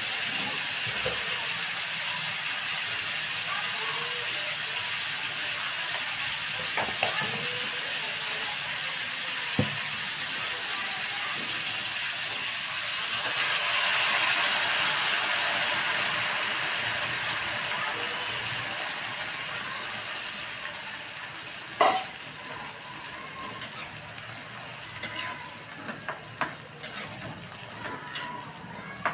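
Onions frying in oil in a wok over a gas flame, sizzling steadily, with occasional clinks of a metal spoon against the pan. About halfway through, water poured into the hot pan makes the sizzle swell briefly into a hiss of steam, which then fades slowly. A sharp metal clink comes near the end.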